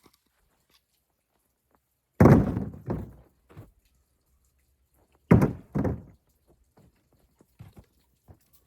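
Two heavy wooden thuds about three seconds apart, each followed by a smaller knock, as pieces of cut tree wood are thrown down.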